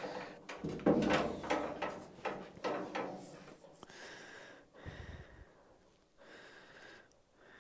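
Steel pickup bed side panel being shifted by hand against the truck, with irregular scrapes and knocks over the first few seconds. A single low thump follows about five seconds in.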